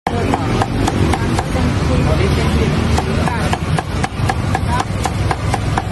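Meat cleaver chopping deep-fried pork on a thick round wooden chopping block: sharp knocks about three times a second, over a steady low background din.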